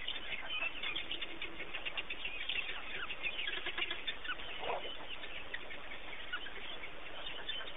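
African wild dogs twittering: a pack's dense run of short, high-pitched chirping calls, overlapping one another.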